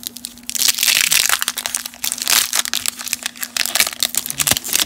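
A waxed-paper baseball card pack wrapper being torn open and crinkled by hand. It makes a loud, dense crackling that starts about half a second in and stops just before the end.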